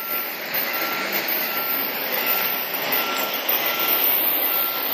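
Railway level-crossing warning bell ringing, an electronic ding repeating about twice a second, over a steady rushing noise.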